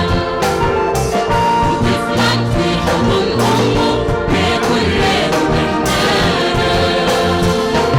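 Worship band playing an instrumental passage of a Sudanese Christian hymn: held chords with a brass-like sound over a steady drum beat.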